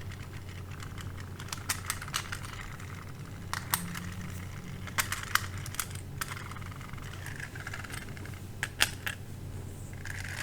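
Small, irregular clicks and taps of plastic pin headers and a circuit board being handled and pressed together, over a low steady hum.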